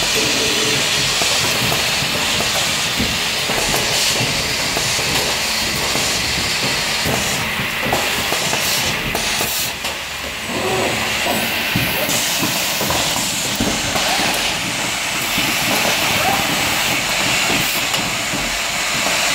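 Automated pneumatic pick-and-place machinery running: a steady air hiss with many small clicks and clacks from its grippers and actuators.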